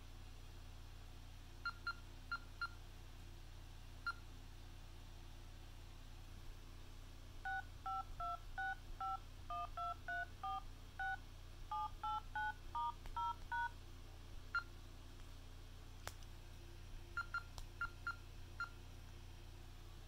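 TCL LX smartphone's dial pad playing DTMF keypad tones as a phone number is keyed in: about twenty short two-tone beeps in quick succession over some six seconds. A few short single beeps come before and after the run.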